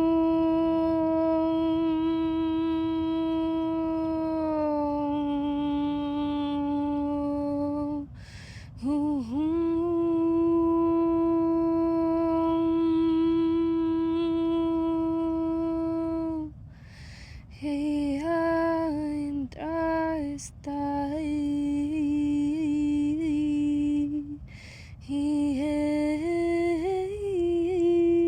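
A woman's voice humming long held notes, each about eight seconds, with short breaks between them. From about halfway she hums a line of shorter notes that step up and down.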